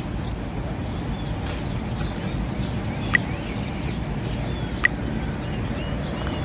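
Birds chirping faintly over a steady low rumble, with two sharp short clicks about three and five seconds in.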